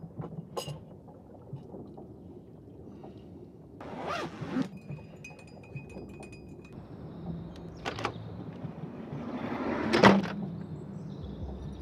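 A metal spoon stirring in a ceramic mug, a run of quick light clinks with a faint ringing, among soft handling sounds of a jar and mug. Near the end a louder rush of noise builds and ends in a sharp thud.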